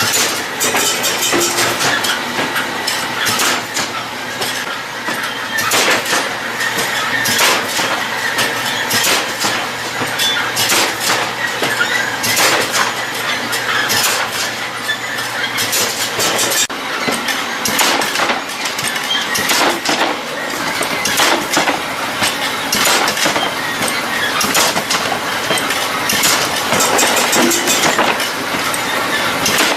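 Machinery running with a steady low hum and frequent clattering knocks; the hum stops about halfway through while the clatter goes on.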